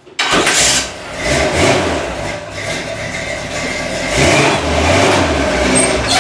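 The 1963 Chevrolet C10 pickup's engine starting with a sudden loud burst. It dips briefly about a second in, then picks up again and runs steadily as the truck is driven forward.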